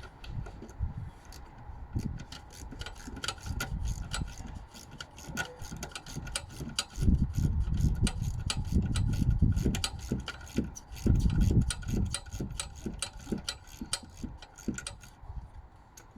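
Socket ratchet clicking rapidly in quick runs as a small 8 mm bolt holding the ABS sensor cable is undone, with some dull knocks and rumbles of handling in between.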